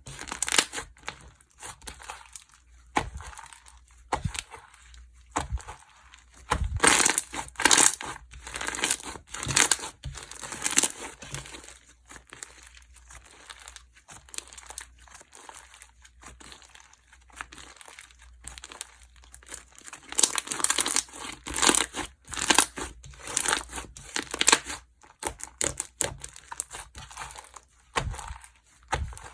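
Slime being squeezed, stretched and kneaded by hand, giving irregular crackling and popping sounds that come in clusters, with quieter stretches in between.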